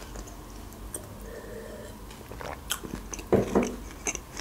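Close-miked mouth sounds of drinking and eating: quiet sips and swallows of cold tea from a glass, then chewing with wet mouth clicks, the loudest a little after three seconds in.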